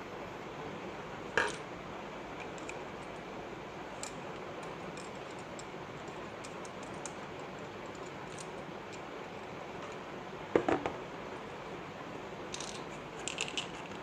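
A few light clicks and knocks of small hard parts being handled, the loudest pair about ten and a half seconds in, over a steady background hiss.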